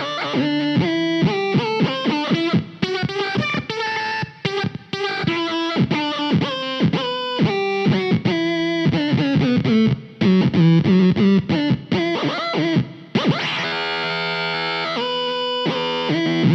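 Rivolta Mondata VIII electric guitar played through an RPS Effects Arcade Machine pedal, turning quick picked notes into synth-like tones that bend down in pitch after each attack. The pedal is pick-sensitive, so hard picking triggers the envelope sweep. Near the end a held note sweeps up in pitch.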